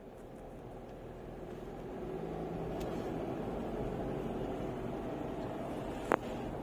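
Steady engine and road noise inside the cabin of a Mitsubishi Pajero Sport driving in traffic, fading up over the first couple of seconds, with two faint single clicks.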